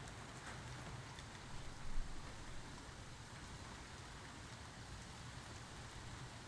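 Steady rain falling, with scattered drops ticking close by and one brief louder thump about two seconds in.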